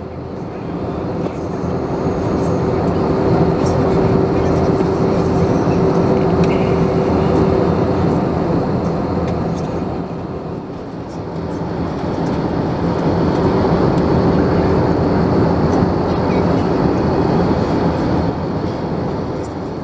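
Cabin noise of an Airbus A321 in flight: the steady roar of airflow and its CFM56-5B engines with a steady hum through it, dipping briefly about halfway through before building again.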